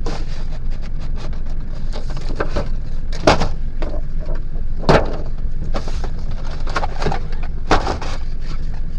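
Action-figure packaging, a cardboard box and plastic tray, being handled and opened, with rustling, scraping and three sharp clicks, over a steady low rumble.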